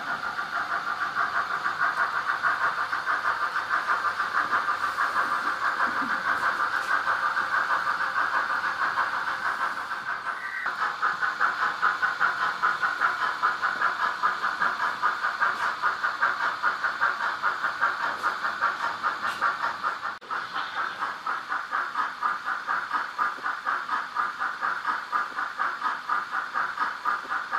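Märklin H0 model steam locomotive running, with a fast, even steam chuffing over a steady hiss. The chuffing breaks off briefly about ten and twenty seconds in, then picks up again.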